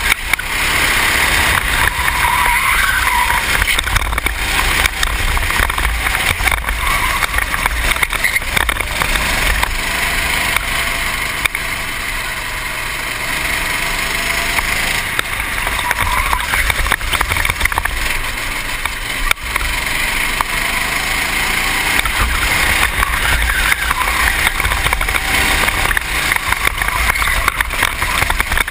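Racing kart engine at speed through a lap, its note rising and falling as the driver accelerates and lifts for the corners, heard from a helmet-mounted camera with heavy wind rumble on the microphone.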